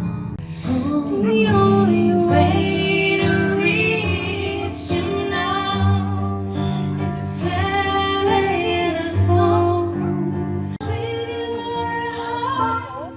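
Background music: a song with a woman singing over an instrumental backing.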